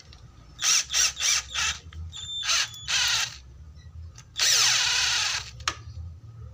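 Cordless drill-driver run in a quick string of short trigger bursts, then one longer run of about a second, as its chuck is tightened onto a flexible shaft extension.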